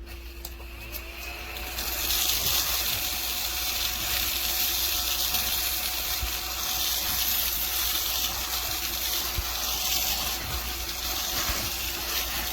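ODISTAR mini desktop vacuum cleaner running with a steady whine and an airy rushing hiss as it sucks up spilled table salt. The hiss grows louder about two seconds in.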